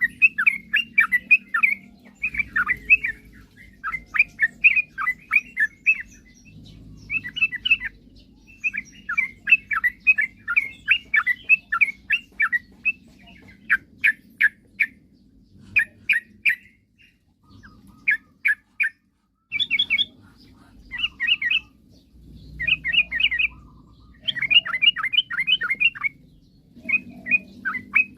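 Yellow-vented bulbul (trucukan) singing: bubbly phrases of quick notes repeated again and again with short pauses, with a longer break a little past halfway.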